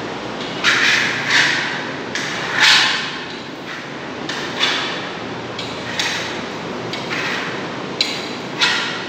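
A brush worked against a wall while applying silk-texture paint: about eight short, scratchy swishes at uneven intervals, each starting sharply and fading quickly, over a steady low background noise.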